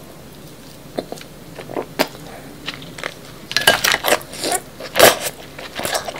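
Close-miked wet eating sounds of a mouthful of king crab meat soaked in creamy Alfredo sauce: a few sharp mouth clicks about a second apart, then a thick run of sticky smacking and sucking a little past halfway, loudest near the end.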